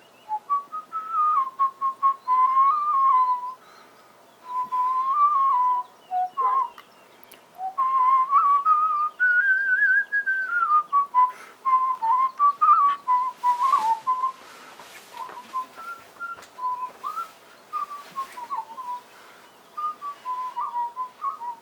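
A person whistling a slow, wandering tune in phrases, with a couple of short breaks between them.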